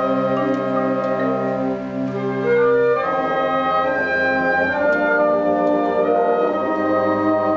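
High school concert wind band playing a slow passage of sustained woodwind and brass chords, the harmony shifting about three seconds in and again near five seconds.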